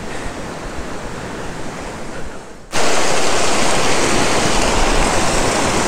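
Steady rushing of a fast mountain stream tumbling over rocks. It is fainter at first, then about halfway through it jumps suddenly to a much louder, close rush.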